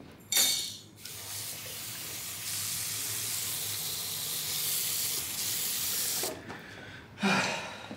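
Water running with a steady hiss for about five seconds, getting louder partway through and cut off abruptly. A short, sharp sound comes just before it starts and another near the end.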